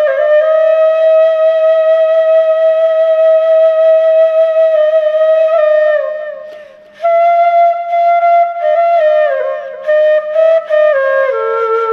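Background music: a slow solo melody of long held notes on a flute-like wind instrument. One note is held for about six seconds, then after a brief break a new note comes in and the tune steps downward.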